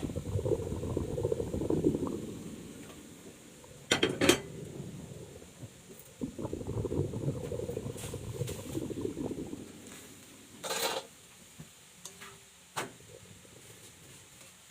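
Kitchen utensil working a mixture in a bowl: a rough stirring, scraping sound in two stretches, broken by a few sharp clinks of utensil on dish.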